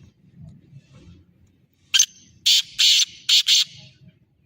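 Black francolin calling: a quick run of about five loud, harsh notes, starting about two seconds in.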